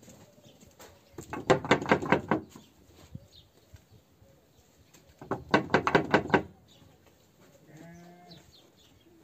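Sheep bleating: two long, quavering bleats a few seconds apart.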